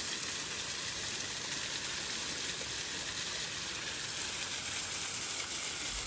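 Steady rushing hiss of a waterfall pouring down a cliff, even and unbroken.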